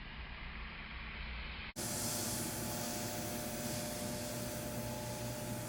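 Water spraying hard from a hose onto the condenser coils of a running York package unit: a loud steady hiss over the unit's hum. It starts abruptly about two seconds in, after a low rumble.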